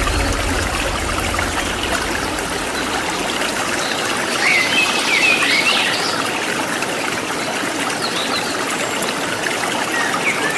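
Steady rushing of falling water from a waterfall, with birds chirping: a cluster of quick chirps about halfway through and a few more near the end.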